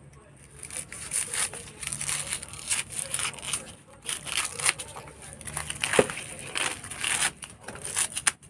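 Knife slitting and scraping the charred husk of roasted bamboo shoots against a wooden chopping block, and the dry burnt sheaths crackling and tearing as they are peeled off, in irregular bursts.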